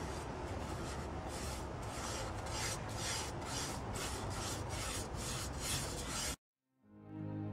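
Pastry brush rubbing oil over a frying pan, a rasping stroke repeated about two to three times a second over a steady hiss. It cuts off suddenly near the end, and soft music fades in.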